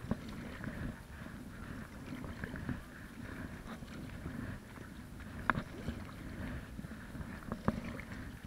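Stand-up paddleboard paddle strokes: the blade dipping and pulling through choppy lake water with splashing and lapping at the board, under a steady rush of wind. A few short sharp knocks, the loudest about five and a half and seven and a half seconds in.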